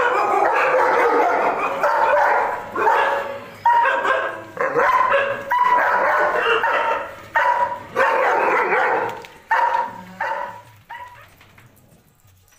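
Dogs barking, a loud, dense run of repeated barks that thins out and stops about eleven seconds in.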